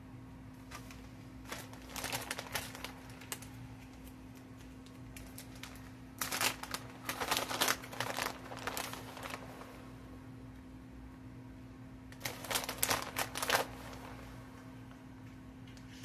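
Plastic bag of shredded taco-blend cheese crinkling as it is handled and opened, in three bouts of rustling: about two seconds in, around six to nine seconds, and again around twelve seconds.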